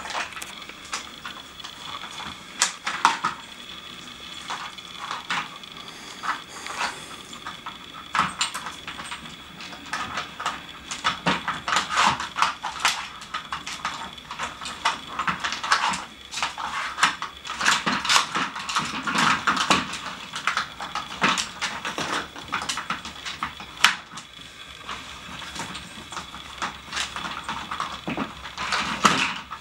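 Dog nosing and pawing at a Nina Ottosson plastic treat puzzle: irregular clatter and knocks of hard plastic pieces being pushed, lifted and dropped, with the board shifting on a wooden floor.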